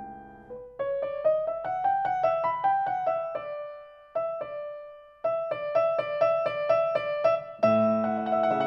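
Grand piano playing a classical passage: a line of single notes with a short break in the middle, then fuller chords with bass coming in near the end.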